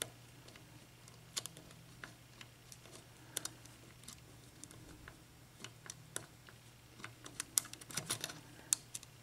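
A lock pick working the pin stacks of a Sargent mortise lock cylinder during single-pin picking, giving faint, irregular small clicks that come more often near the end.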